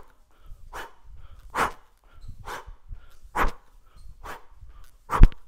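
A woman's sharp, forceful exhalations, one with each squat and uppercut, about one a second, six in all. The last, near the end, is the loudest and comes with a low thud.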